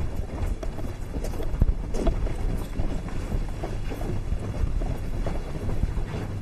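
Footsteps of several people walking quickly together, a steady patter of hard-soled shoes on the floor.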